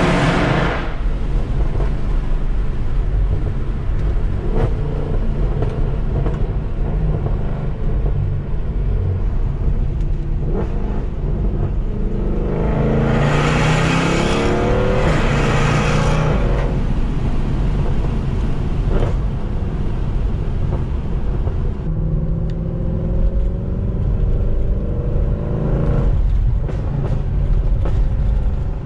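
Mercedes C63 AMG V8 with catless long-tube headers, an X-pipe and stock rear mufflers, running at low revs with a steady rumble. Its pitch rises as it accelerates about 13 seconds in, then it settles back.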